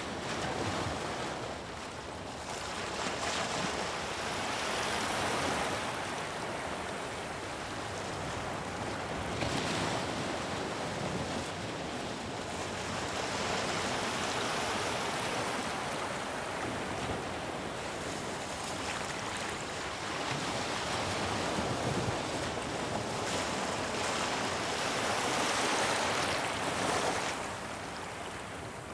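Surf noise: waves washing in, swelling and fading every few seconds.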